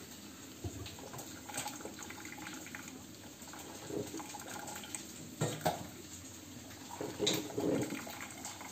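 Vestel drip coffee maker running a water-only rinse cycle: hot water trickling and dripping into the glass carafe as it fills. A few short louder noises come over it about halfway and near the end.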